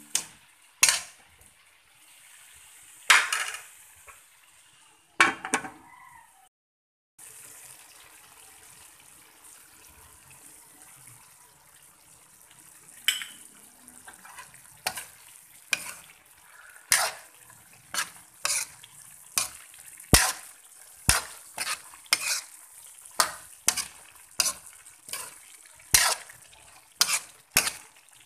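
A metal ladle scraping and knocking against a metal wok while stirring pork menudo. The strokes come about once a second, more often in the second half, over a faint sizzle of the simmering sauce. There is a brief break of silence about a third of the way in.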